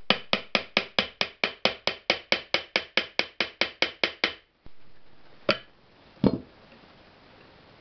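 A rapid, even run of sharp metallic clicks, about six a second for some four seconds, then two single knocks, from hands working the bearing end shield of a three-phase electric motor that will not quite seat on the housing.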